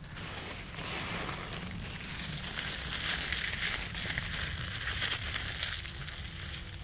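Leaves being crumpled and rustled by hand, a dense crackling with many small snaps that grows louder after about two seconds.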